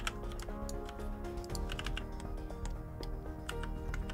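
Background music with scattered clicks of computer keyboard keys being pressed.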